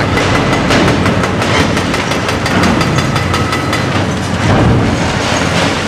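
Hydraulic demolition hammer with a ball-shaped tip pounding through a reinforced concrete bridge deck: loud, rapid, evenly spaced blows.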